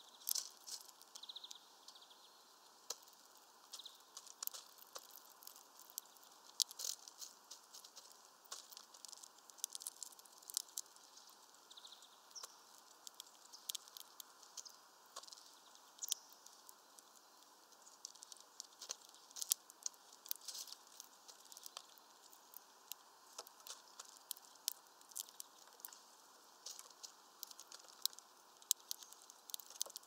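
A great tit pecking at peanuts through a mesh feeder bag: irregular sharp taps and clicks, several a second, with quiet gaps between runs.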